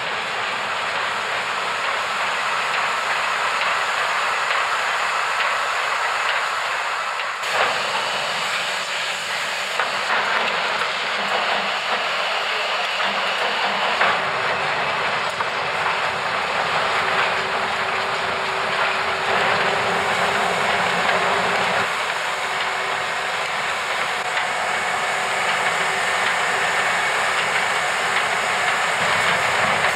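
Printing and bookbinding machinery running: a steady, dense mechanical din whose character shifts abruptly three times as different machines are heard.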